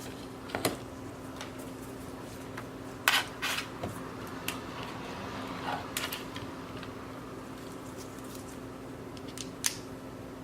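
Scattered sharp clicks and taps of small parts being handled while plugging in a MacBook Air's connectors, a few seconds apart, over a steady low hum.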